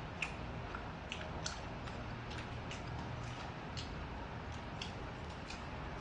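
Light, irregular clicks and ticks of chopsticks against each other and the dishes while eating, about two or three a second, over a steady low hum.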